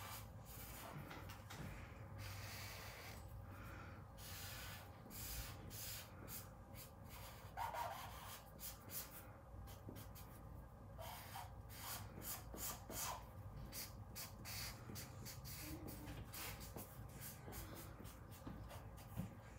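Caliart marker tip scratching over paper in many quick back-and-forth strokes as an area is coloured in.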